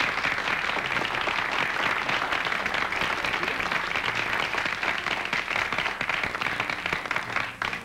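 Audience applauding: dense, steady clapping that stops abruptly near the end.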